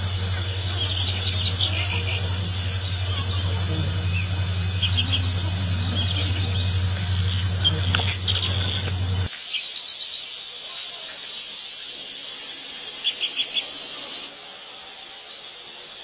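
A shrill, steady insect drone with short bird chirps scattered through it. A low, steady diesel locomotive hum runs underneath and cuts off suddenly about nine seconds in. The drone stops about fourteen seconds in.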